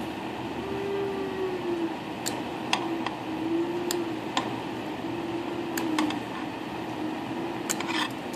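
Small sharp clicks and taps of nail tools at work, about eight spread over several seconds with a cluster near the end, over a steady room hum.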